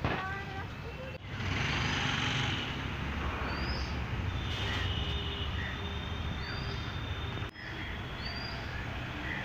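Outdoor street ambience: steady rumble of road traffic, with a few short bird chirps over it.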